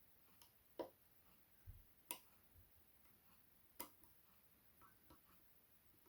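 Small metallic clicks and ticks from a pick working the levers inside a Fichet 484 lever lock held under tension: three sharper clicks about a second apart or more, with fainter ticks between.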